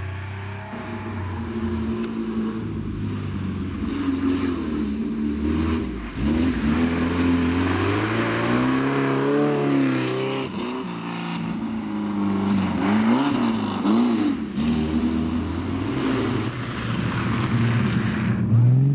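Historic rally car engines, among them a Ferrari 308 GTB and a Triumph GT6, revving hard through a snow-covered corner one after another. The engine pitch rises and falls repeatedly as the drivers work the throttle on the slippery surface, with the loudest runs in the middle and just before the end.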